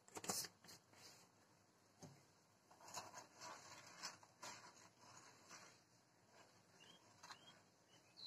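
Faint kitchen handling sounds: a sharp knock just after the start as salt is spooned into a non-stick frying pan of water, then a run of light knocks and scrapes as a wooden spatula stirs the water in the pan, about three to five and a half seconds in.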